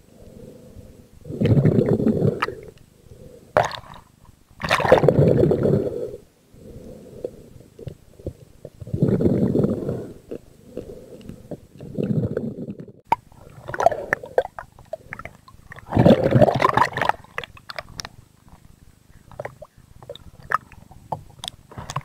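Muffled underwater gurgling and rushing water, swelling in surges every few seconds, with a few sharp clicks between them.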